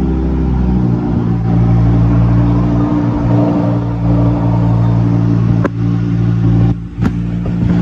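Lamborghini Huracán LP 610-4's 5.2-litre V10 idling steadily just after start-up, with a deeper low note dropping out about a second in. Two brief clicks come near the end, about a second and a half apart.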